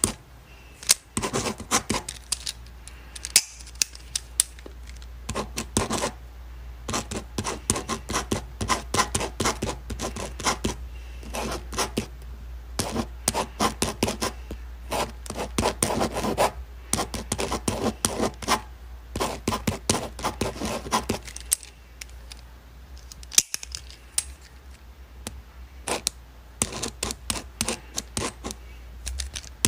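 Pen writing on paper: quick, irregular scratching strokes and taps in bursts, with short pauses between them, over a low steady hum.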